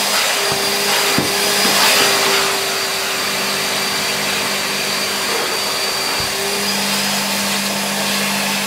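Numatic George wet-and-dry vacuum running steadily, with a high whine over the rush of air, as its upholstery nozzle is drawn over a fabric car seat. A few faint knocks come from the nozzle against the seat.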